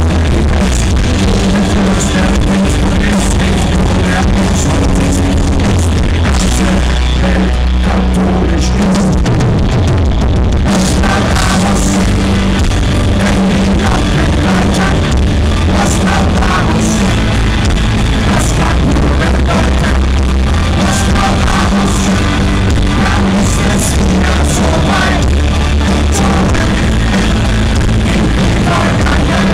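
Live rock band playing loud, with electric guitars, heavy bass and drums.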